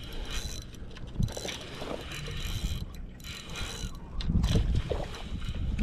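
Spinning reel being cranked steadily, its gears whirring as the line is retrieved, with a louder low rush near the end.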